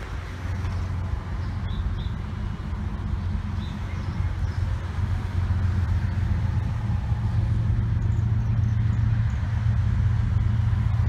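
Canadian National diesel locomotive running as it approaches slowly at the head of an intermodal train: a steady low engine drone that grows louder, its pitch stepping up slightly about seven seconds in.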